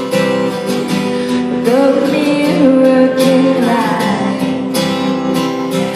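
Acoustic guitar strumming with a voice singing along, the sung notes sliding between pitches.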